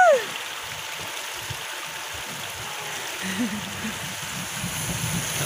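Steady rush of pouring and splashing water at a waterpark. A loud rising-and-falling call cuts off right at the start, and faint voices murmur low from about three seconds in.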